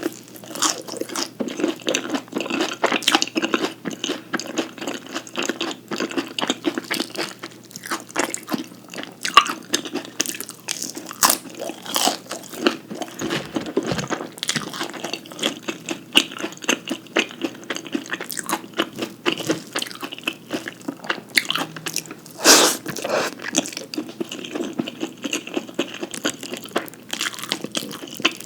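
A person biting and chewing food close to the microphone: a dense run of sharp crackling clicks, with one louder bite about 22 seconds in.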